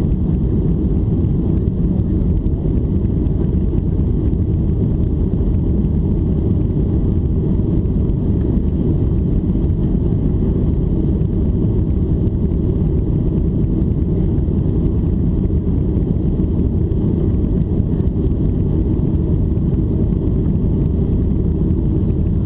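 Steady low rumble inside the cabin of a Boeing 737-800 in flight just after takeoff: its CFM56-7B engines and the airflow past the fuselage.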